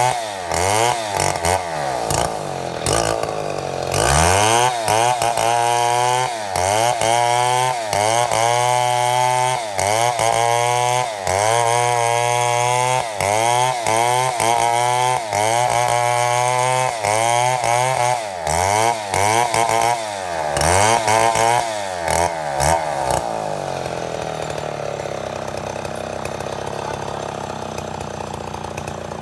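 Chainsaw cutting mahogany lengthwise while milling lumber, its engine speed rising and falling about once a second under load. It drops to a steady, quieter idle about 24 seconds in.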